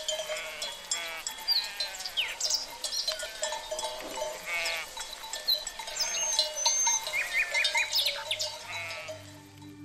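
A flock of sheep bleating, with several quavering bleats one after another.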